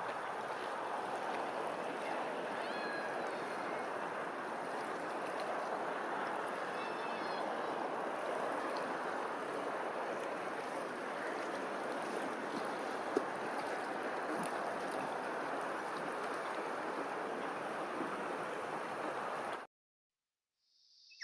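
Steady rush of flowing stream water, with a few faint bird chirps about three and seven seconds in. It cuts off suddenly shortly before the end.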